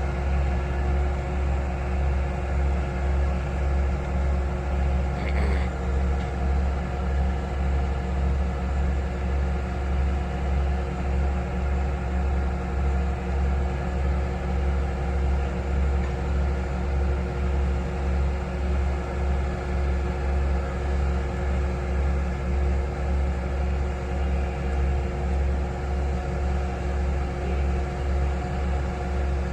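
Heavy diesel engine of drilling or excavating equipment running steadily, a deep rumble that pulses evenly about twice a second.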